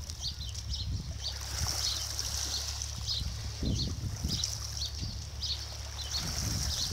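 Wind rumbling steadily on the microphone, with short high chirping calls repeating two or three times a second.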